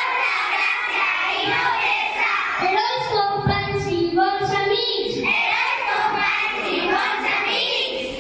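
Young children singing a song together, one of them into a handheld microphone.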